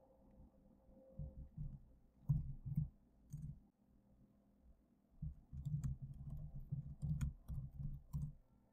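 Computer keyboard being typed on: a few scattered key presses in the first half, then a quick run of keystrokes over the last few seconds.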